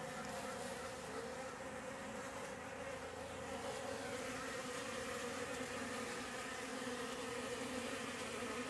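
Steady hum of many honeybees buzzing together at the hive while they feed on surplus honey left on a board.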